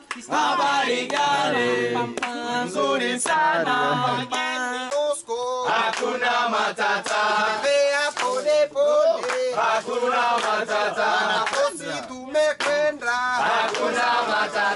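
Several men singing a chant-like song together, the voices rising and falling without pause.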